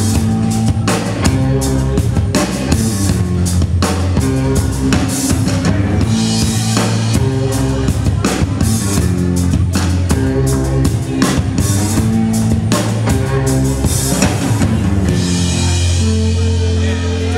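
Live rock band playing an instrumental passage: drum kit, electric guitar and bass guitar, without vocals. The drum hits thin out about fifteen seconds in, leaving held guitar and bass notes.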